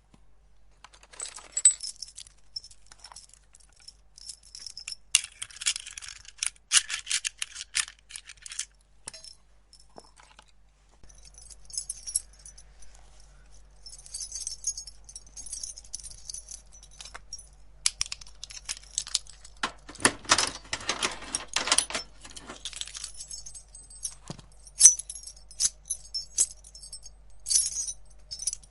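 Bunch of metal keys jangling and clinking, in several bursts of a few seconds each, with quieter gaps between.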